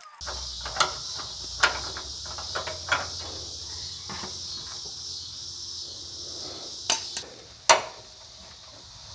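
Sharp metallic clinks and taps of a wrench and hand tools working loose a car's brake-line fittings, about half a dozen strikes with the loudest near the end, over a steady high hiss.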